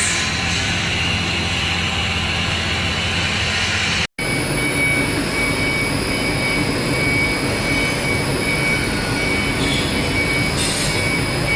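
CAT6 cable-making machinery running steadily: continuous mechanical noise with a steady high-pitched whine. The sound drops out for a moment about four seconds in and resumes a little different, with the high whine more prominent.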